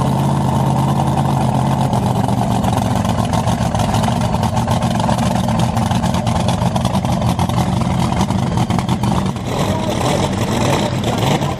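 Supercharged nitro-burning dragster engine idling loudly with a rapid, rough firing; near the end the sound shifts, with more hiss on top.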